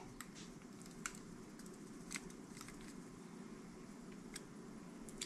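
Faint, scattered small clicks and scrapes of a metal dental pick pressing cotton yarn into the light-seal track of a Canon AE-1 Program camera body, a few clicks standing out about one and two seconds in and near the end.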